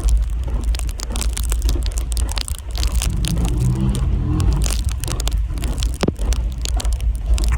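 Strong wind buffeting the microphone in a steady low rumble, mixed with dense crackling and crunching.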